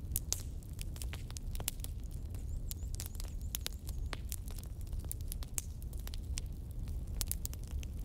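Wood fire crackling: irregular sharp pops and snaps, several a second, over a low steady rumble.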